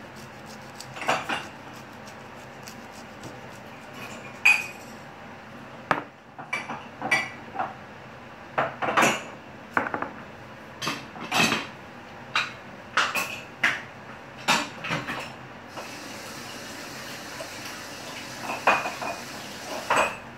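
Kitchen dishes and cutlery clinking and knocking on a countertop in irregular clatters, with a few sharp, louder knocks among them.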